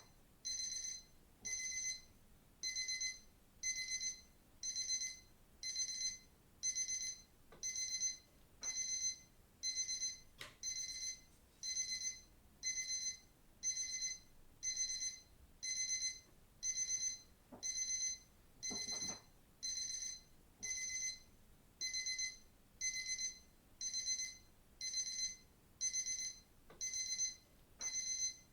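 Digital watch alarm beeping: high-pitched electronic bursts of about half a second each, repeating steadily about once a second.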